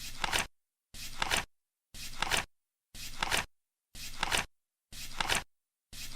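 Flip clock's digit cards flipping once a second, a steady ticking rhythm: each flip is a short flap-and-click about half a second long, ending in a sharper clack.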